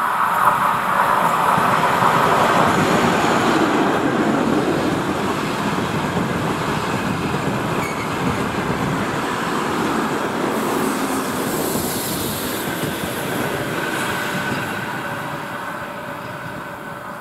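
ChS4 electric locomotive and its service train rolling past on the rails: a continuous rumble of wheels and carriages that fades over the last few seconds as the train draws by and slows for the station.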